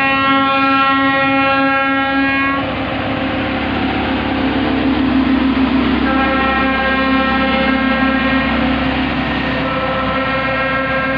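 Horn of a passing Harsco rail track maintenance machine, sounded in long blasts: one of about two and a half seconds at the start, then another from about six seconds in, broken briefly near the end. Under it the machine's engine runs steadily as it rolls along the rails.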